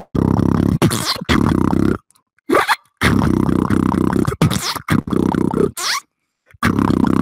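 Beatboxing: a loud, deep buzzing bass line with sharp snare- and hi-hat-like hits on top. It cuts out to silence twice, once about two seconds in and again near the end.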